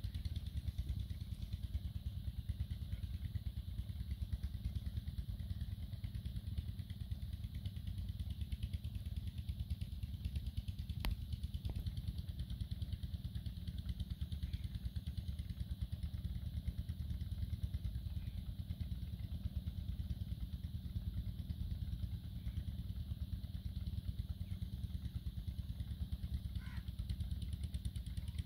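Small single-cylinder stationary engine driving an irrigation water pump, running steadily with a low, even thumping. A single sharp click about eleven seconds in.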